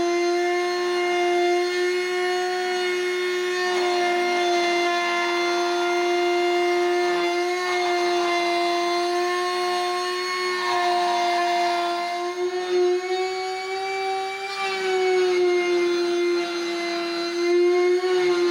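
CNC router spindle running with a steady high whine while its bit cuts along the border of an HDHMR board, the pitch wavering slightly as the cut goes on.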